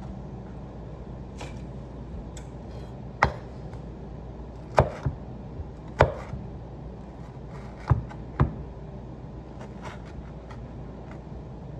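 Kitchen knife cutting tomatoes, the blade knocking down sharply at uneven intervals, about seven times.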